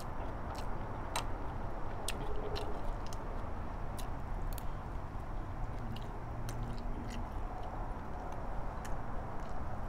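A person eating: chewing and small mouth sounds. A spoon scraping and tapping in a metal bowl gives scattered light clicks.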